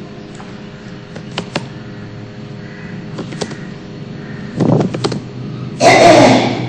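Computer keyboard keys clicking in ones and twos as a few words are typed, over a steady low hum. Near the end comes a loud breathy noise lasting about half a second.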